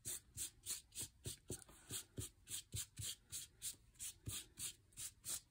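Ink blending tool scrubbed back and forth over embossed textured paper, a faint rhythmic swishing of about four strokes a second.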